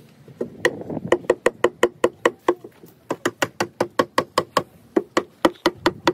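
Mallet rapidly knocking on the cedar staves of a wooden hot tub at their base, tapping them into place against the tub floor. About five sharp, woody-ringing blows a second, with a brief pause about halfway through.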